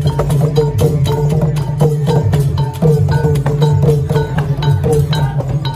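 Khmer festive procession music played on drums and percussion, with a quick steady beat of sharp strikes and a short pitched note repeating over it.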